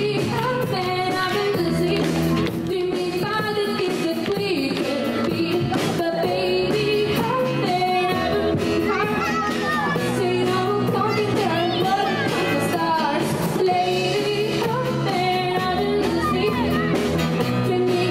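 Live pop song cover: a female vocalist sings through a microphone and PA over strummed acoustic guitar, electric piano and a drum kit keeping a steady beat.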